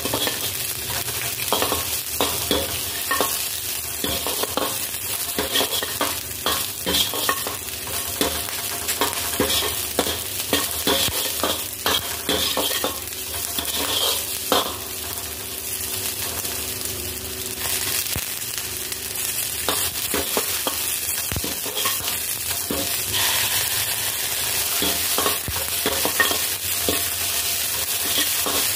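Diced onion, garlic and dried red chillies frying with a steady sizzle in a wok, stirred with a metal ladle that scrapes and knocks against the pan many times.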